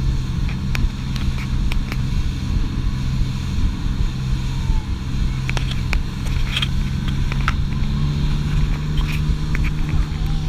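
Motorboat engine running steadily at speed, with wind buffeting the microphone and occasional short knocks.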